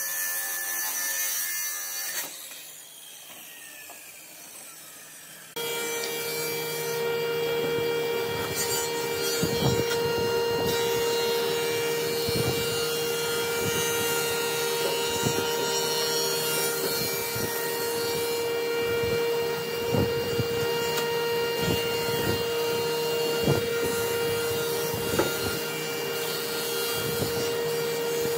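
Wood being worked with a power tool: a steady motor whine sets in about five seconds in, with repeated rasping, rubbing strokes on the wood over it. Before that come two short stretches of workshop noise, the first louder than the second.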